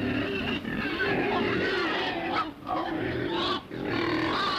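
Several pigs grunting and squealing together, overlapping rough calls with only brief pauses.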